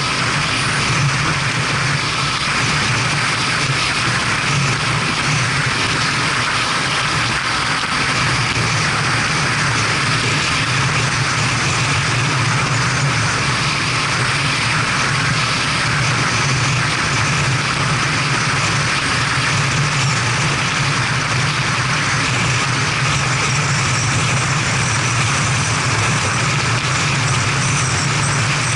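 BMW F700GS motorcycle's parallel-twin engine running steadily under way, mixed with wind and road noise, heard through a helmet-mounted camera.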